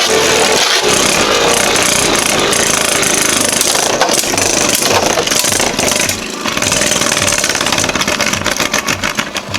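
Two Beyblade spinning tops running and clashing against each other, a dense grinding rattle full of sharp clicks of contact. In the last few seconds, evenly spaced low pulses come in.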